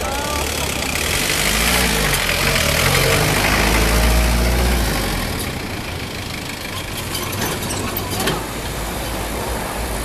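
Road vehicles driving over the level crossing once the barriers lift: a car and a small truck with their engines running as they pull away and pass, loudest about three to five seconds in, then easing off as more traffic follows.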